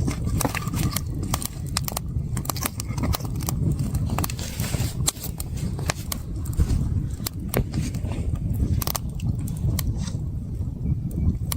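Wood campfire crackling and popping: many sharp irregular snaps over a steady low rumble.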